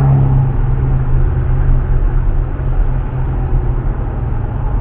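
A motor vehicle's engine running steadily: a constant low hum under road noise.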